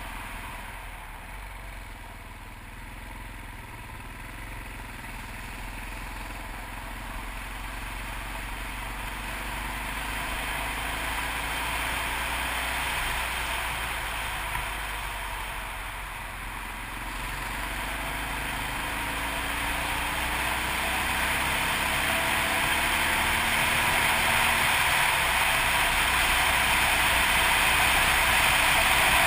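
Yamaha TT600RE's single-cylinder four-stroke engine running under way on the road, with wind rushing over the camera. The sound grows steadily louder through the second half as speed picks up.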